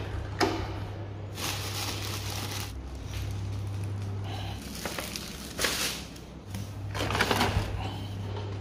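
Plastic and paper bags rustling and crinkling as they are picked up and carried, in several bursts, over a steady low hum.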